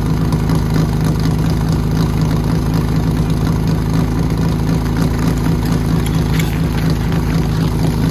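Engine of a portable fire pump running steadily at an even pitch, with no change in speed. A few faint clatters come near the end.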